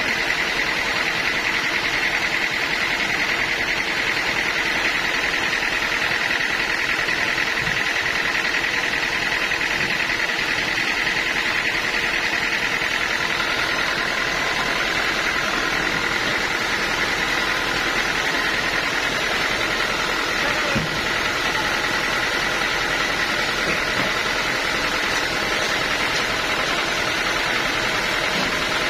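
Sawmill machinery running steadily, with a constant mechanical drone and a steady high whine that do not change.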